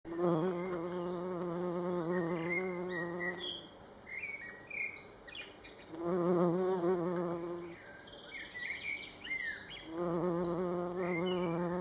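Bumblebee buzzing in flight, a low steady hum with a slight waver in pitch, in three bouts of two to three seconds each. Small birds chirp briefly between the bouts.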